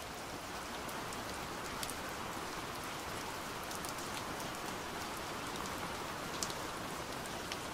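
Steady rain: an even hiss with scattered light drop ticks.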